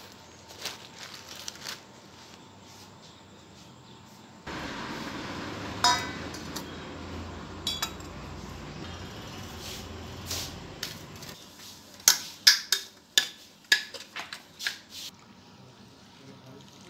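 Stainless-steel kitchen utensils clinking and clanking on a stone counter: a few light taps, then a steady hiss with occasional metallic pings, then a quick run of loud clanks about twelve seconds in.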